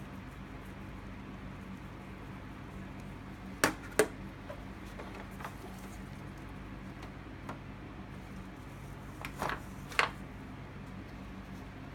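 Sharp metal clinks and knocks as a motorcycle's four-carburettor bank is handled and set down in a foil pan: two quick knocks a little under four seconds in and a cluster of three near ten seconds. A steady low hum lies under them.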